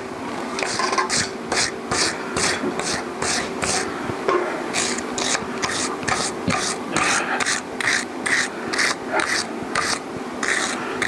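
Hand tool scraping back and forth on a freshly welded metal part held in a vise, in quick even strokes about three a second, over a faint steady hum.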